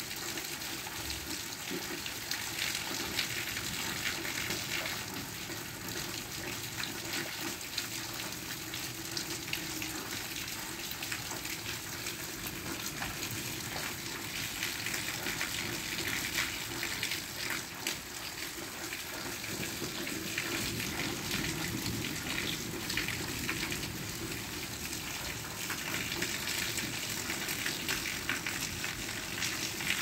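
Steady rain: an even hiss of falling rain with a dense, fine patter of drops.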